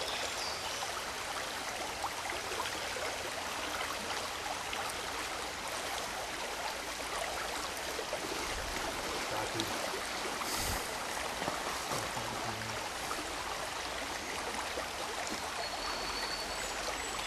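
Small stream running steadily, an even rush of water, with a few soft low knocks a little past halfway.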